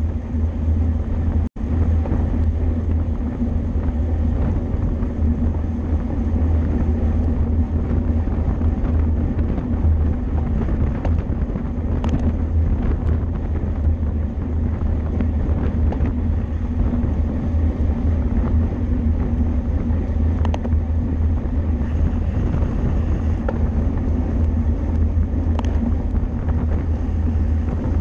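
Steady wind rumble buffeting the microphone of a camera riding on a racing bicycle at speed, with a few faint clicks. The sound drops out briefly about a second and a half in.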